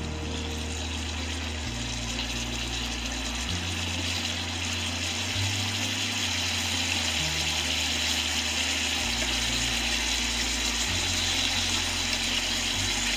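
Marinated pork pieces sizzling in hot oil in a frying pan, a steady hiss that grows a little louder about halfway through.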